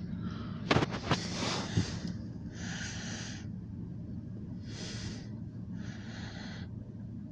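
Steady low drone of a departing Alco diesel locomotive. Over it come a few sharp clicks in the first two seconds and three short breathy hisses close to the microphone.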